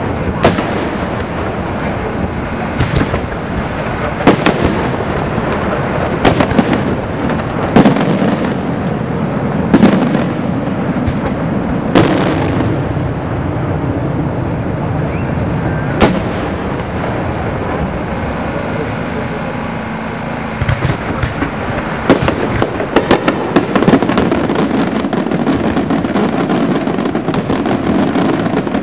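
Aerial fireworks display: loud single shell bursts every second or two over a steady crackling. About three-quarters of the way in, this turns into a dense, rapid crackle of many small reports.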